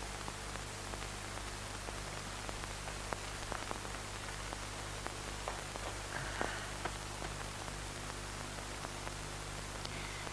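Steady hiss and low hum of an old film soundtrack, with faint scattered clicks and rustles of a cloth bundle being handled and unwrapped.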